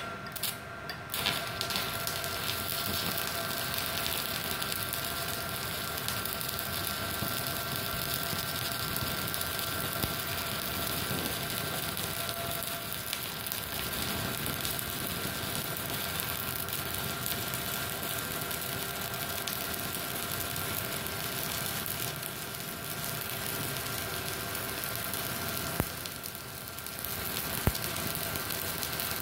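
Stick (electrode) arc welding with a 2 mm rod at about 60–70 amps on a small MultiPro Solid 125 A-ST IGBT inverter welder. The arc is struck with a few sharp scratches about a second in, then crackles and hisses steadily over a steady whine. It breaks off for about a second near the end and is struck again.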